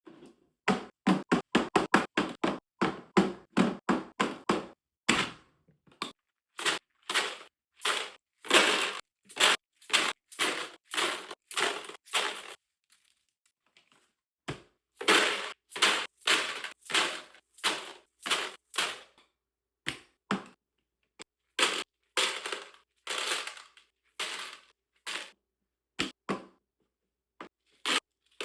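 Ammunition and ammo boxes being handled: a long series of short, sharp clacks and knocks, several a second at first, then more spaced out, with a brief pause about halfway through.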